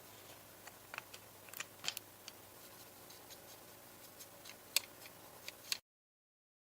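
Scattered light clicks and ticks of small handwork over a faint hiss, irregular and a few a second, the loudest about two seconds in and near the end; the sound cuts off abruptly to silence about six seconds in.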